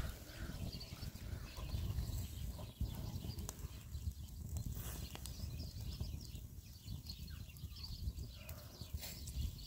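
Charcoal and wood fire in a metal grill crackling, with scattered sharp pops over a low, fluttering rumble.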